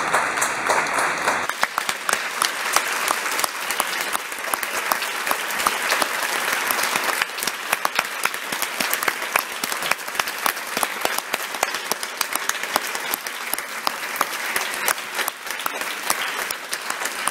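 Theatre audience applauding a ballet curtain call: dense, steady clapping from many hands, a little louder and fuller for the first second and a half.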